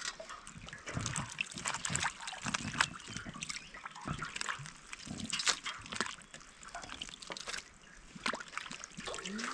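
Water trickling and splashing in small, irregular splashes and drips.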